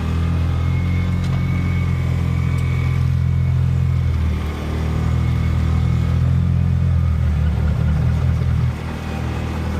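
A stuck vehicle's engine held at high revs while its wheels spin in boggy mud, just digging in rather than pulling out. The revs dip briefly about four seconds in and ease off near the end.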